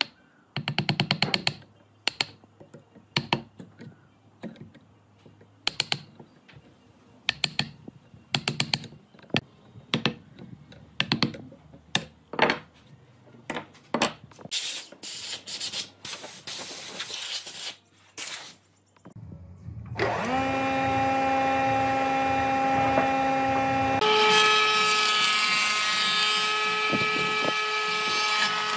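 Woodworking in a workshop: a string of short knocks and brief tool bursts, then a power tool motor starts and runs steadily. About four seconds after it starts, the motor changes pitch and turns louder and rougher as it works the wood.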